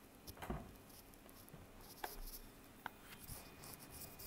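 Faint handling noises: a soft knock about half a second in, then two light clicks about two and three seconds in, over quiet room tone.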